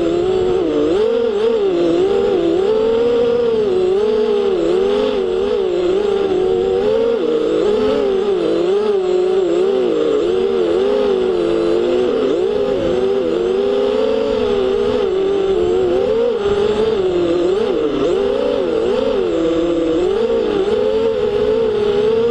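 FPV quadcopter's electric motors and propellers whining, the pitch rising and falling constantly.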